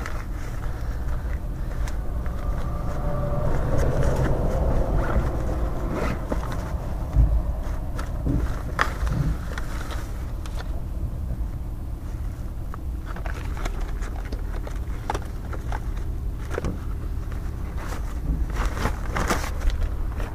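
Handling noise of clothing and belongings being moved and rummaged through inside a vehicle: rustling with scattered sharp clicks and knocks, over a steady low rumble.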